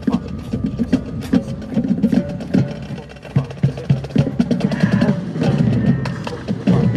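High school marching band playing its field show, heard up close from a camera mounted on a trombone, with a dense run of sharp drum and percussion hits.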